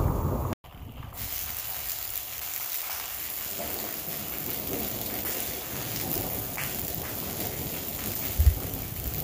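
Steady rain falling in a thunderstorm. A low thunder rumble cuts off abruptly about half a second in, and a couple of short low thumps come near the end.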